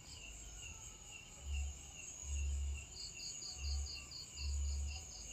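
Insects chirring steadily in a high chorus, with one pulsing call of about four beats a second joining about three seconds in. Several low rumbles come and go throughout and are the loudest sounds.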